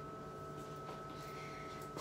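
Quiet room tone: a steady electrical hum with a faint high whine, and a few faint light taps in the second half.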